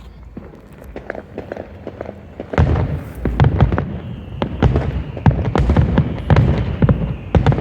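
Fireworks finale barrage: scattered bangs at first, then from about two and a half seconds in a dense, rapid run of explosions, several a second, with deep booms.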